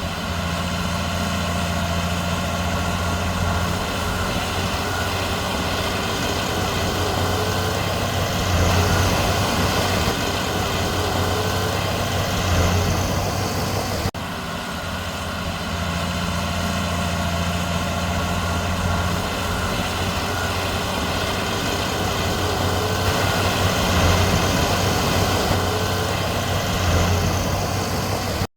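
Heavy diesel engine of earthmoving machinery running steadily, swelling briefly under load several times.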